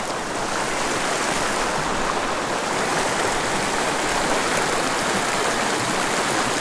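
Small mountain stream running fast over rocks in shallow whitewater riffles: a steady, even rush of water.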